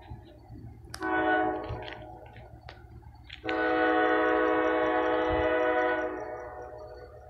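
CSX diesel locomotive's multi-chime air horn blowing for a grade crossing: a short blast about a second in, then a long blast held for a couple of seconds from about three and a half seconds in, fading away near the end.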